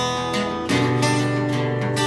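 Acoustic guitar strumming chords, each strum clearly struck and left to ring.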